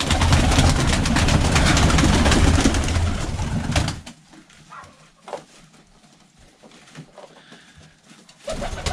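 Several pigeons take off from a loft floor at once: a loud clatter of wingbeats for about four seconds. It then drops to a quieter stretch with pigeons cooing.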